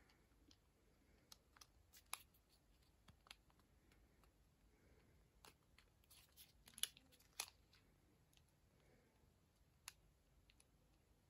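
Near silence, broken by about eight small, sharp clicks at uneven intervals; the loudest comes a little past the middle.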